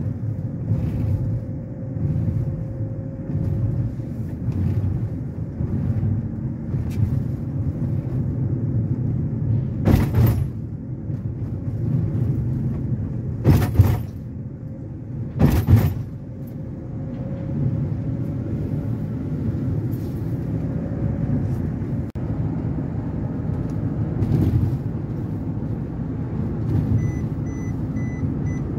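Inside a moving car: the steady low rumble of engine and tyres on the road, broken by three sharp knocks in the middle stretch, the last two close together. A faint rapid beeping near the end.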